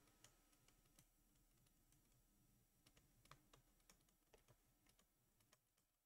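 Near silence, with a few faint, scattered clicks.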